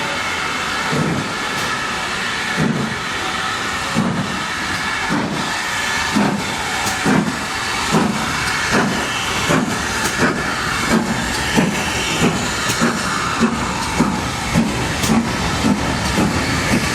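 GWR Manor Class steam locomotive working hard, its exhaust beats quickening from about one a second to about two a second as the train picks up speed, over a steady hiss of steam and running noise.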